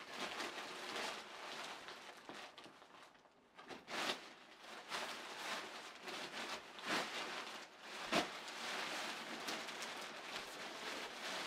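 Thin nylon fabric of an airblown inflatable rustling and crinkling in irregular bursts as it is handled and climbed on, with a short lull about three seconds in.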